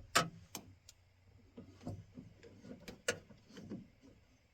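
Sharp clicks and light clinks of parts and hand tools being worked inside a truck door around the door latch, with softer rustling between them. The loudest clicks come just after the start and about three seconds in.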